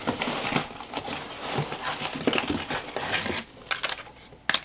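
Packaging being handled: rustling with a run of light clicks and taps, and one sharper click near the end.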